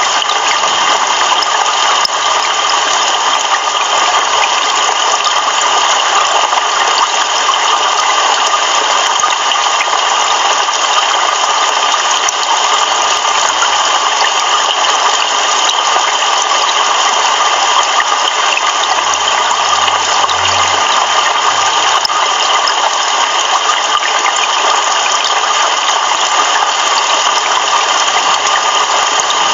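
Heavy rain pouring down steadily, a dense continuous hiss of drops.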